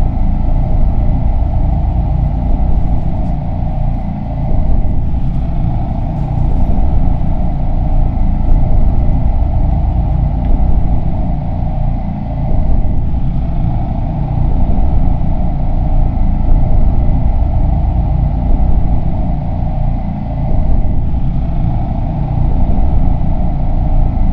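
A loud, low rumbling drone that swells and eases about every four seconds, with faint steady high tones above it.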